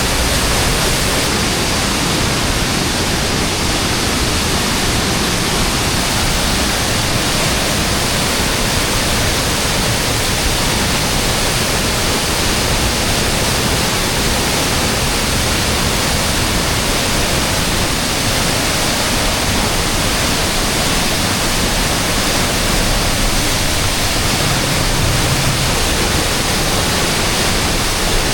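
Rushing river water pouring over a waterfall, a steady, even hiss of water with no change in level.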